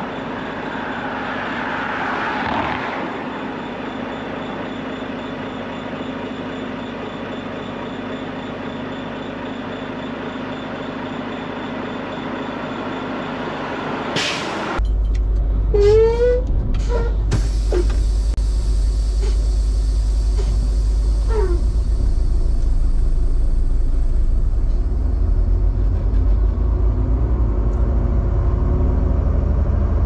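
Heavy truck idling with a steady hum while stopped in traffic. About halfway through there is a short air-brake hiss, then a much louder low rumble sets in as an oncoming tractor-trailer passes close by, with a few brief falling squeals.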